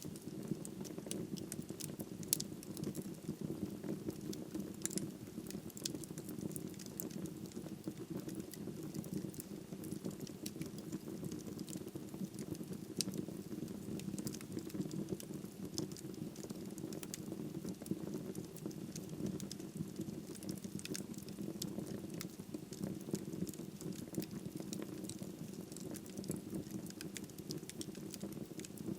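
Wood fire crackling in a fireplace: frequent small sharp pops and snaps over a steady low rumble of flames.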